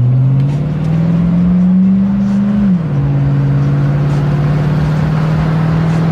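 Chevy Vortec 5.3 V8 of a 2006 Silverado 1500 pulling away under acceleration: the engine note rises for nearly three seconds, drops at a gear change, then holds steady.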